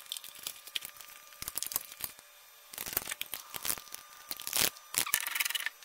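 Crinkly rustling and scattered sharp clicks in several short flurries: electronic aircraft weighing scales, their plates and cables being handled and set in place.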